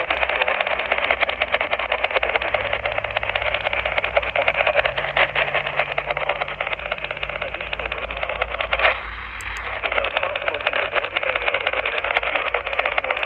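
Heavy static hiss and crackle from a weather radio receiver as the broadcast signal is lost. About nine seconds in, the noise dips briefly and a short high tone sounds.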